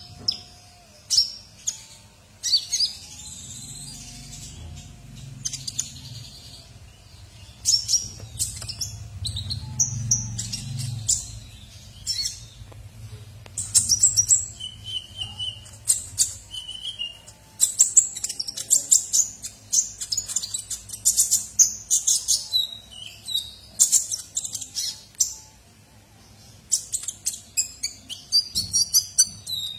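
Caged purple-throated sunbird (kolibri ninja) in full song: fast, high-pitched runs of sharp chirps and twitters, broken by short pauses, with a few short clear whistled notes in the middle. A faint low rumble sits underneath for the first ten seconds or so.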